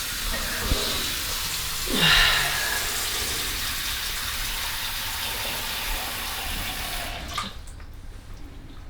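Water running steadily, as from a tap or shower, then cut off about seven seconds in. A short sound falling in pitch comes about two seconds in.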